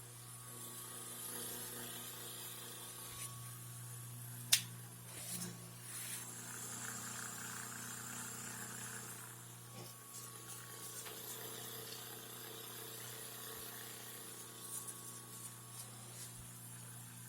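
Electric fan motor running with a steady low hum, and one sharp click about four and a half seconds in. The fan's owner says its bushing sometimes makes loud sounds.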